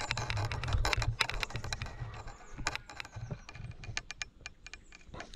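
Irregular mechanical clicks and knocks over a low rumble of handling, as a carp rod and reel are worked while playing a hooked fish. The clicking is busiest in the first couple of seconds and grows sparser later.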